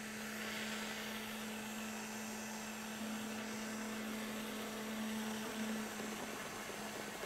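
Countertop blender running steadily, blending a thick mixture.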